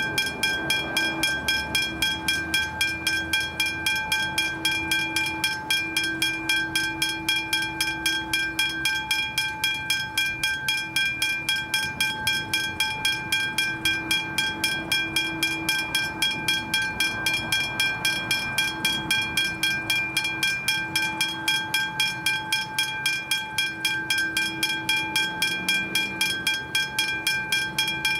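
Westinghouse hybrid electronic level-crossing bell ringing steadily, about four strikes a second, while the crossing is activated for a maintenance test.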